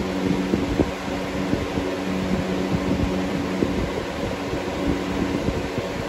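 Lasko Cool Colors box fan (model B20301) running: a steady rush of moving air over a constant low motor hum, with some fluttering low rumble from the airflow.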